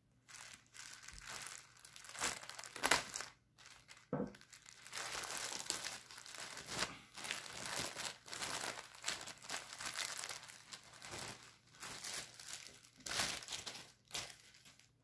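Thin clear plastic bag crinkling and rustling as a folded T-shirt is worked out of it by hand, in an uneven run of crackles with a few louder ones.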